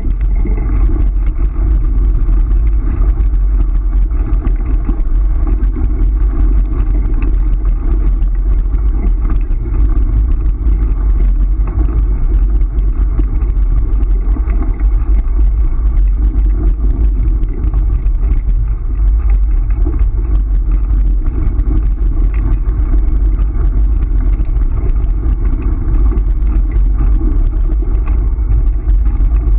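Steady loud rumble of wind on the microphone and a dog scooter's tyres rolling fast over a dirt and gravel track.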